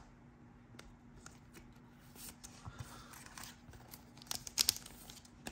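Trading cards and thin plastic card sleeves being handled: soft rustling and light clicks as the cards are lined up and slid together into one sleeve, with a few sharper taps about four and a half seconds in.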